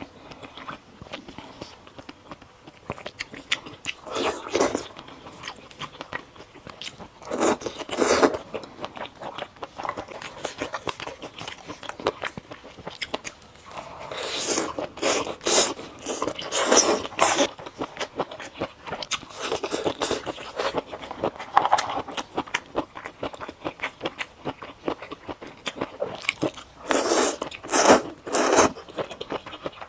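Close-miked eating sounds: repeated wet bites and chewing of oden skewer items, coming in loud clusters with quieter chewing between, and slurping of spicy fire noodles near the end.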